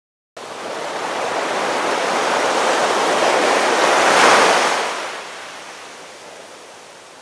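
An ocean wave washing in: a surging hiss that swells to a peak about four seconds in, then ebbs to a soft wash.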